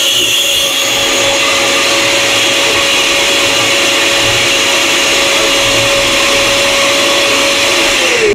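Countertop blender running steadily at high speed, puréeing tomatoes, onion and garlic with water into a liquid sauce; the motor winds down and stops at the very end.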